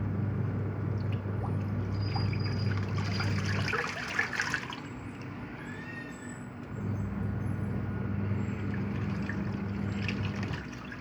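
Sharp twin-tub washing machine agitating water in its wash tub: the motor hums steadily for a few seconds, stops for about three seconds, then starts again, with water sloshing throughout.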